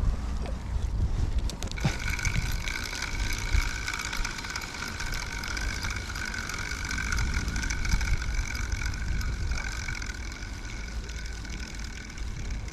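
A motor's steady high whine, starting about two seconds in and holding steady, over a low rumble of wind on the microphone.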